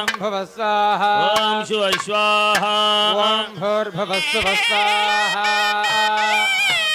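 A single melodic line of short, sliding, ornamented notes held over a steady low drone, with the notes gliding upward near the end; South Indian temple music or chant accompanying the fire offering.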